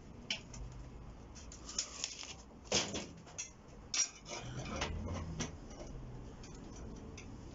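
Small metal tools and a thin plate being handled on a steel workbench during marking out: light clinks, taps and scrapes, with about five sharper knocks spread through.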